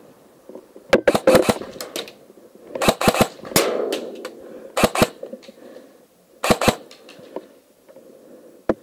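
Airsoft rifles firing in short bursts of a few sharp cracks each, about five bursts spread out with pauses between them.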